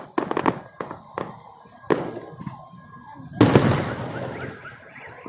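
Fireworks salute: a quick string of sharp cracks, two more single cracks, then a loud burst about three and a half seconds in that rolls away slowly.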